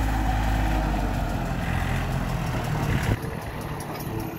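John Deere 790 compact tractor's three-cylinder diesel running steadily with its rotary cutter engaged. About three seconds in the sound drops abruptly to a quieter, lighter engine note.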